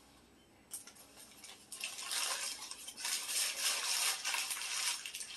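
Food wrapping paper crinkling and rustling as it is crumpled in the hands, after a light click about a second in.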